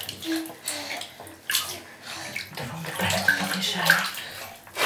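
Water splashing and sloshing in a baby's bath in irregular bursts, with a few short vocal sounds.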